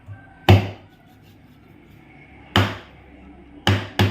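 Four sharp, heavy knocks of something being struck: one about half a second in, another about two seconds later, then two in quick succession near the end.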